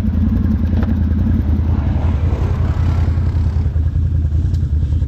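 ATV engine running at a steady, even pitch with no revving.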